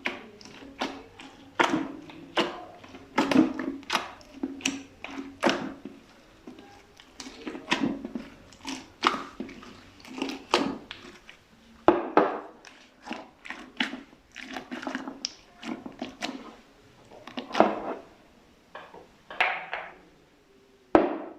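Slime being pressed and mixed by hand: a run of irregular squelches and pops, often one or two a second, with short pauses between.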